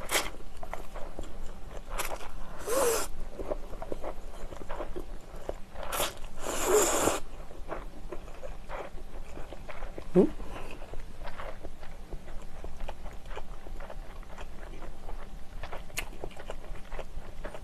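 Close-miked eating of instant yakisoba noodles: several short slurps in the first seven seconds, then chewing with many small wet mouth clicks.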